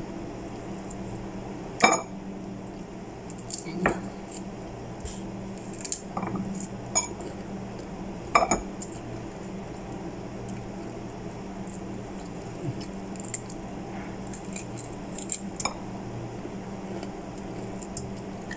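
Pomegranate being pulled apart by hand over a ceramic bowl: scattered sharp clicks and taps as peel and seeds come loose and knock against the bowl, with a steady low hum underneath.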